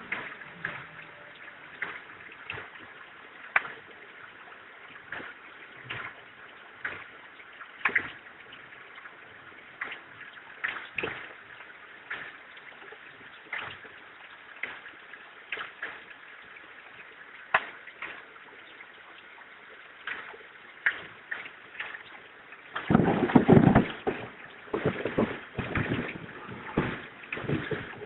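Irregular sharp clicks and knocks from work on heated circuit boards during IC removal, with a louder stretch of clattering and scraping about 23 seconds in.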